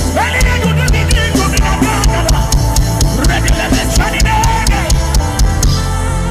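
Gospel worship band music: a drum kit keeps up frequent hits over a steady bass, with a bending melodic line on top and no words sung.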